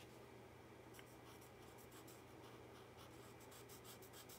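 Faint scratching of a felt-tip marker on paper, colouring in with quick repeated strokes that grow busier after the first second or so.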